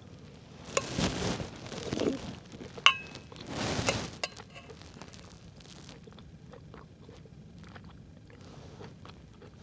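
A spoon clinking against a metal soup thermos, twice with a short ring, between two spells of rustling noise, then faint small ticks.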